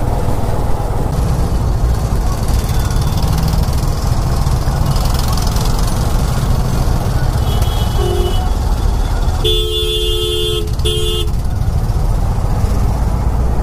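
Motorcycle engine and road noise in traffic, with vehicle horns honking: a short honk about eight seconds in, then a longer blast and a short second blast just after ten seconds.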